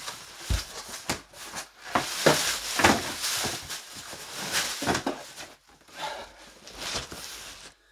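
Large cardboard shipping box being handled: its flaps folded and rubbed and the box lifted and shifted, making rustling and scraping with a few dull knocks, a low thump about half a second in.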